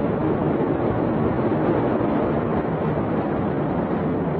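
Steady, loud rushing noise that stays even throughout, with no bangs or distinct events.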